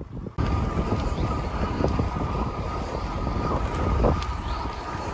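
Wind buffeting the microphone of a camera on a moving bicycle, with a steady high hum above it. It starts abruptly about half a second in.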